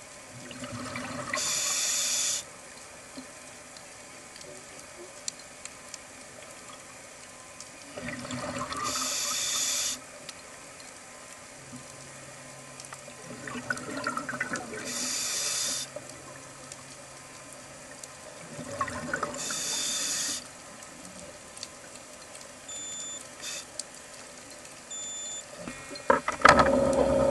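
Scuba diver breathing through a regulator underwater: four breaths about six seconds apart, each a swell of bubbling ending in a hiss that cuts off sharply. Near the end comes a louder burst of knocks and bubbling.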